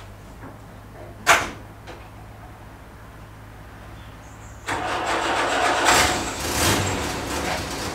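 1948 Ford Prefect's 1172cc sidevalve four-cylinder engine idling quietly; the car door is slammed shut about a second in. From about five seconds in the engine noise jumps suddenly louder and rougher, surging a couple of times.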